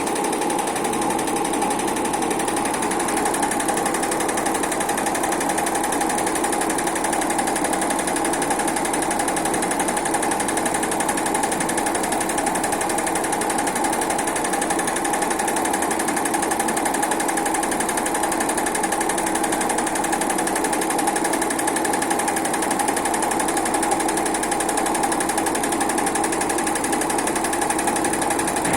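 Automatic heating-wire sewing machine running steadily without pause.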